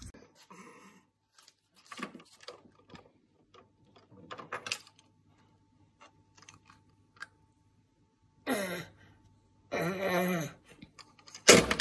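Plastic toys clicking and knocking as a toddler handles them, then the toddler babbling in two short bursts of voice in the last few seconds. A loud sound starts just before the end.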